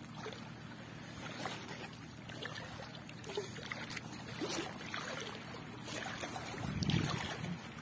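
Gill net hauled by hand over the side of a small boat, water trickling and dripping off the mesh with scattered small splashes. A low rumble near the end.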